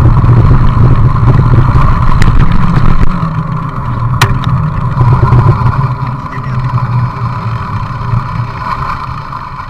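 Wind buffeting the microphone of a camera on a moving mountain bike: a loud, steady rumble with a couple of sharp clicks, which dies down steadily over the second half.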